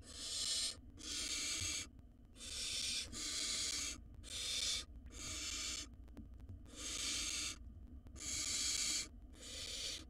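Barn owl nestlings giving their rasping, hissing begging calls: a string of harsh hisses, each under a second long, about one a second, some nearly back to back.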